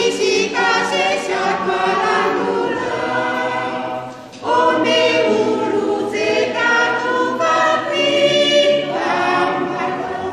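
Women's choir singing a hymn a cappella, several voices together in sustained phrases, with a short break about four seconds in before the next phrase.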